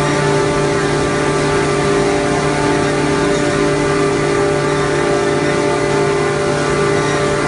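Corrugated board production line running: a loud, steady machine drone with several unchanging hum tones over a constant mechanical noise.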